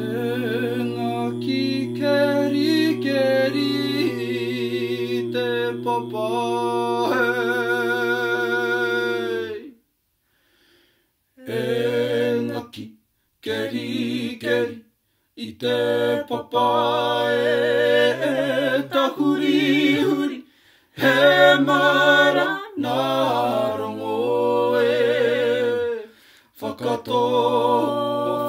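A small group of voices, men and a woman, singing a Māori waiata together with vibrato, breaking off into short silences several times.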